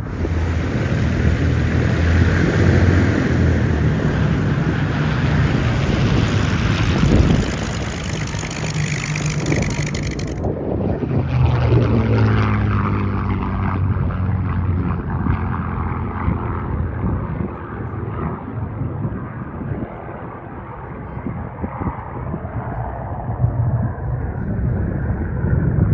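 P-51 Mustang's V-12 piston engine and propeller flying past, loud at first, with the engine pitch falling as it goes by about twelve seconds in, then fading and building again near the end.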